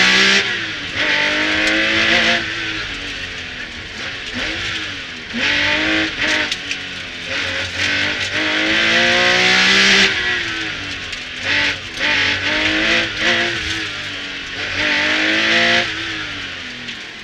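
Porsche 911 Carrera 3.0 RS rally car's air-cooled flat-six engine, heard loud from inside the cabin, revving up hard and changing gear again and again, with repeated rises in pitch each cut off by a shift or a lift of the throttle. Heavy road noise runs under it.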